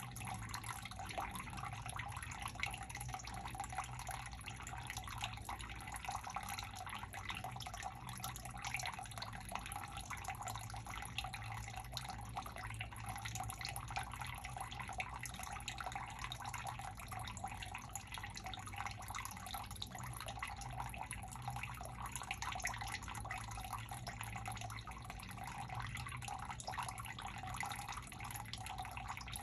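Water trickling and dripping steadily into a sump pit from the drain line while the pump sits off between cycles, the pit slowly filling.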